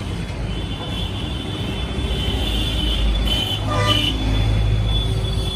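Low engine rumble of a passing vehicle, building about halfway through and staying strong, over a thin steady high tone.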